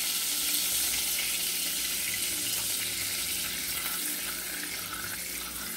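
Butter melting and sizzling in hot grease in a saucepan, a steady frying hiss.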